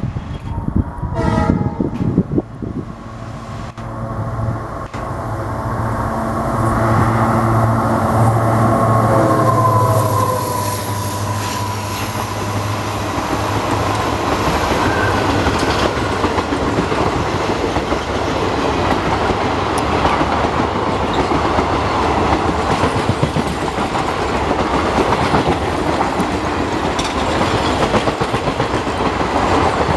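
A WDG4 (EMD GT46MAC) diesel locomotive with a two-stroke engine hauling a passenger train past. A short horn blast comes near the start, then the engine's throb builds and its pitch drops as the locomotive goes by about ten seconds in. The steady rumble and clickety-clack of the coaches rolling past follow.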